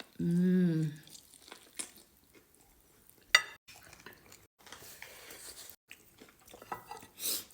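A brief hummed vocal sound like an "mmm", then a single sharp clink of a utensil on a dish about three seconds in, with faint tableware handling and eating sounds around it.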